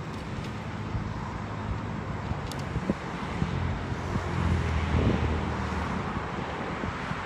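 Distant road traffic: a steady low rumble that swells about four to five seconds in, with wind on the microphone.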